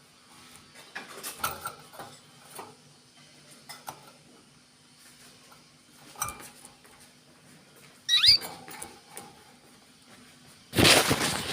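Small birds moving about, with light scratching and clicking, a short high chirp about eight seconds in, then a sudden loud burst of rustling near the end.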